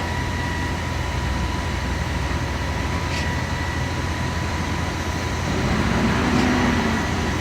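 Heavy diesel engines of the concrete pump truck and ready-mix trucks running steadily during the pour: a continuous low rumble with a thin, steady high tone over it.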